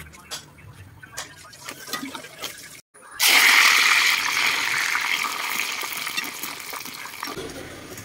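Light clinks of a ladle working in a pan of frying chicken. About three seconds in, loud sizzling of hot oil deep-frying in a large iron wok starts suddenly, then slowly fades.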